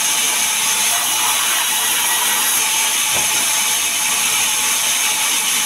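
Large sawmill band saw running with a steady, loud, high-pitched hiss as it cuts a sengon log into boards.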